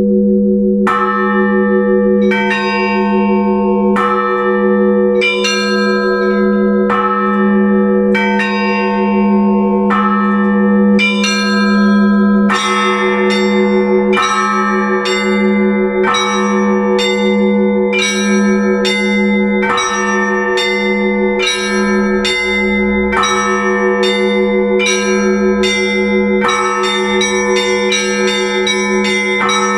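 Russian Orthodox church bells rung together: a large bell's low tone sounds beneath, while smaller bells are struck in a rhythmic pattern. The strikes come closer together, quickening to several a second in the last few seconds.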